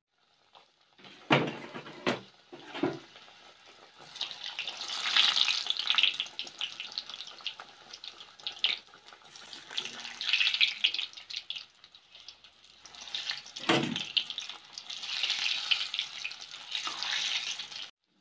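Syabali dough pockets deep-frying in hot oil in a wok, the oil sizzling in three swells. A few sharp knocks in the first three seconds and one more a little past the middle.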